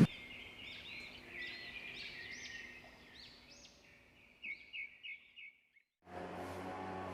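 A bird singing a run of quick, repeated chirping notes, ending with four short, sharper notes. Background music begins about six seconds in.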